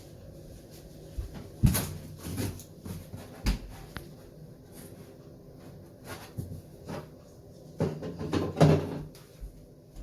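Rummaging: scattered knocks and bumps of things being handled and moved, with a cluster of louder ones near the end.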